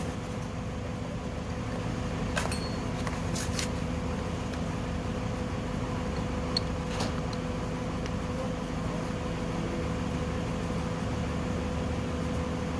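A steady machine hum, with a few light clicks and taps about two and a half, three and a half, and seven seconds in.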